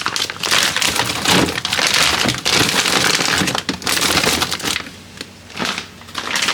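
Crinkling and crunching of plastic food packaging being handled, a dense run of crackles and small clicks with a brief lull about five seconds in.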